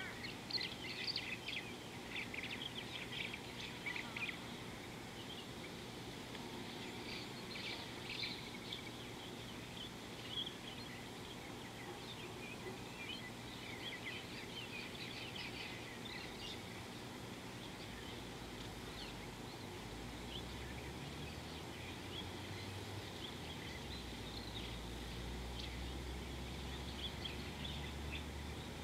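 Birds chirping and twittering in many quick, high calls that thin out after the first half or so. From about two-thirds in, a low steady buzz joins underneath.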